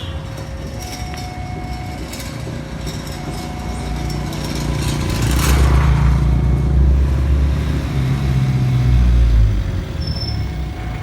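Railway level-crossing warning siren sounding two alternating tones, switching a little more than once a second, with a buzzing, distorted edge. A heavy engine rumbles past about halfway through and is the loudest sound until it fades near the end.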